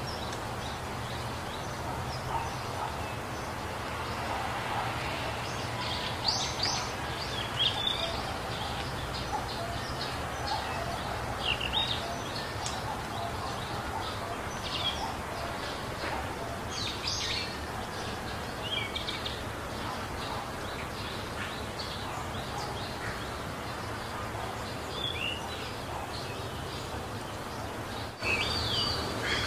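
Birds chirping in short, scattered calls over a steady background hiss and low hum, with a louder cluster of chirps near the end.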